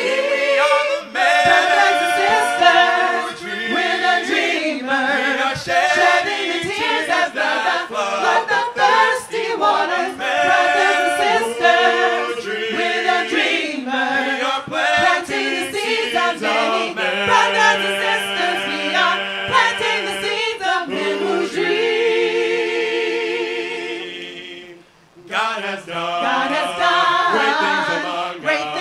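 A group of voices singing a worship song in harmony. Near the end the singing falls away almost to nothing for a moment, then picks up again.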